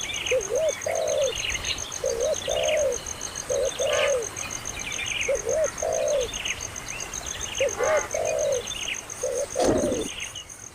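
A dove cooing over and over in two-note phrases, with small birds chirping higher up and a steady high pulsing buzz behind. A short, loud, muffled thump comes near the end.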